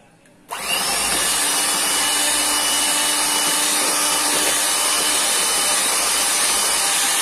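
Bajaj Majesty HM01 electric hand mixer switched on about half a second in, its motor and beaters running at a steady speed while whisking whipped cream and melted chocolate together.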